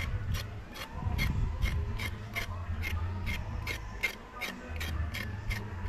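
Knife blade scraping the skin off a carrot in quick, even strokes, about four a second.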